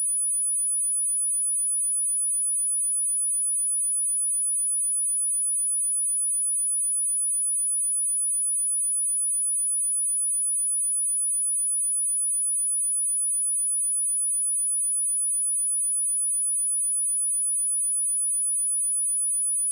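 A steady 9896 Hz sine-wave test tone, a single high-pitched pure whistle held at one unchanging level.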